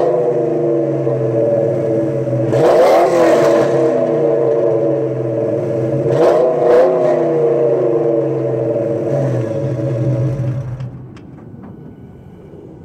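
1999 Ford Mustang GT's 4.6-litre V8 idling through its exhaust, blipped three times in short revs, then switched off near the end, leaving a few faint clicks.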